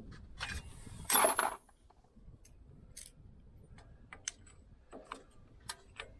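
Metal tools and parts clinking during brake work: a louder metallic clatter lasting about half a second, about a second in, then a few separate sharp clinks.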